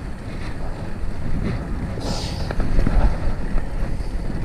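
Wind buffeting the action camera's microphone over the rumble of a fixed-gear bicycle rolling along a street, with a brief higher hiss about two seconds in.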